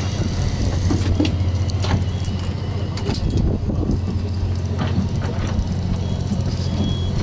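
Fishing boat's engine running with a steady low drone, with a few scattered knocks and clicks on deck.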